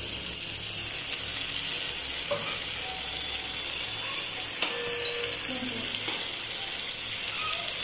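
Chopped tomatoes, capsicum and peas sizzling in hot oil in a non-stick pan while a wooden spatula stirs them, with two sharp clicks about halfway through.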